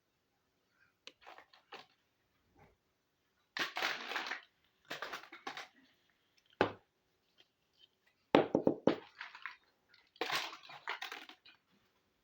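Small plastic toy kitchen pieces being handled, giving irregular clusters of clicks, taps and rustles, with one sharp click about six and a half seconds in.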